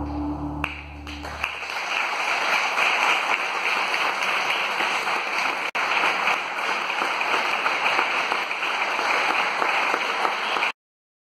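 The music's held low drone ends in the first second and a half, and an audience breaks into steady applause that continues until it is cut off abruptly near the end.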